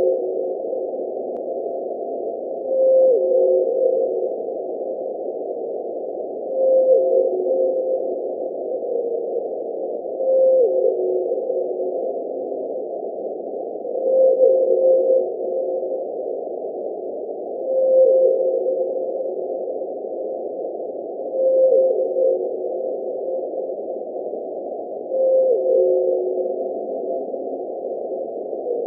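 Antarctic blue whale calls picked up by an ocean-bottom seismometer and played back with the pitch raised twenty times to be audible. A call repeats about every four seconds, eight in all, each the species' Z-call: a steady tone that drops quickly to a lower held tone, over a steady rushing background noise.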